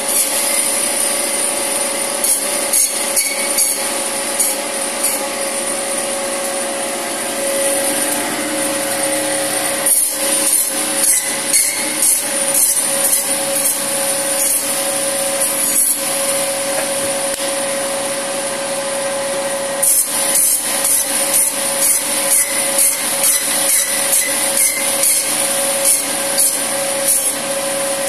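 La Minerva meat band saw running steadily while its blade cuts mutton on the bone into cubes, a quick series of short rasping cuts through bone. The cuts come thickest about a third of the way in and again through the last third.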